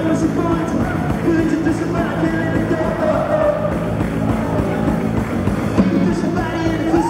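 Live rock band playing, amplified and heard from among the audience in a large concert hall.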